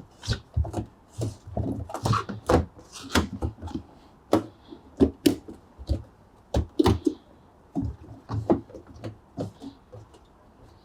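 Irregular clicks and knocks of a flat screwdriver working the clamp ring off a front-load washing machine's rubber door seal.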